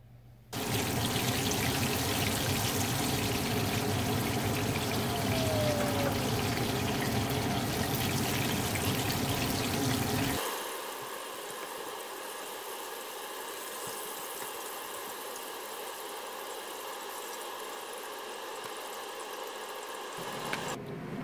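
Breaded yellow perch fillets frying in a pan of hot oil: a steady, dense sizzle and crackle, which turns quieter about halfway through.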